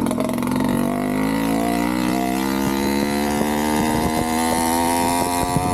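Two-stroke Avenger 85 motorized-bicycle engine, fitted with a Nibbi PE19 carburetor and a repaired Gomax expansion-chamber pipe, running under load with its pitch climbing steadily as the bike accelerates.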